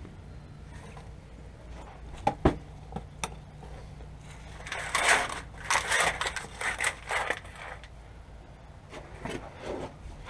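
Handling noise from working under a truck: a sharp knock, then a few seconds of scraping and rustling as gloved hands work along the frame, over a low steady hum.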